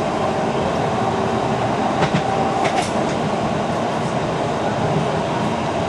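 Blackpool Centenary tram 642 running along the track, a steady rolling rattle with a couple of sharp clicks from the rails about two to three seconds in. A steady whine holding one note sounds over it until about halfway.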